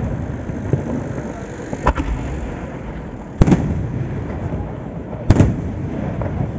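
Colour aerial firework shells bursting overhead: three loud, sharp bangs roughly one and a half to two seconds apart, each followed by a short rumble, over a steady low rumble.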